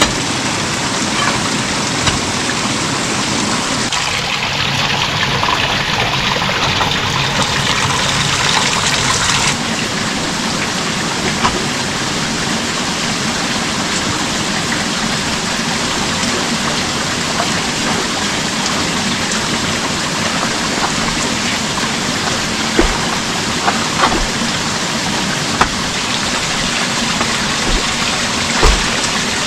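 Steady, even rain with no let-up, falling harder for several seconds near the start, with a few small knocks near the end.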